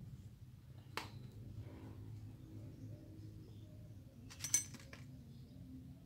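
Small metal pump parts clinking as seal rings and retainers are handled and fitted into the head of a pressure-washer plunger pump during a seal replacement: a single click about a second in, then a quick cluster of ringing clinks about two-thirds of the way through, over a faint low hum.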